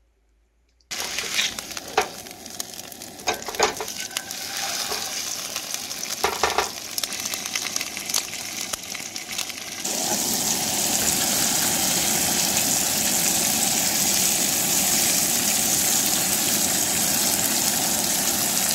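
Rainbow trout pieces frying in oil in a nonstick pan on a camp stove, sizzling, starting about a second in. During the first half a spatula stirs and turns the fish, with scattered clicks against the pan. From about ten seconds in the sizzle is louder and steady.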